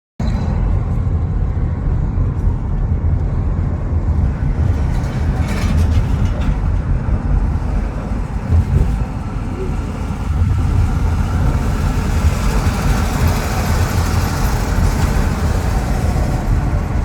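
A car driving on the road: a steady low rumble of road noise, with the hiss rising a little about two-thirds of the way through.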